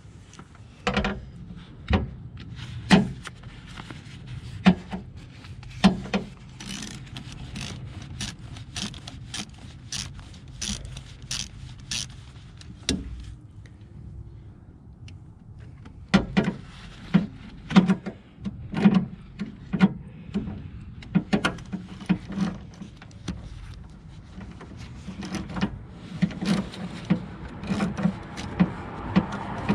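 Hand tools and metal parts clicking, knocking and scraping during work on the ignition coil pack of a Jeep 4.0 L inline-six, with the engine off. The clicks are sharp and irregular, sometimes a couple a second, with a quieter stretch around the middle.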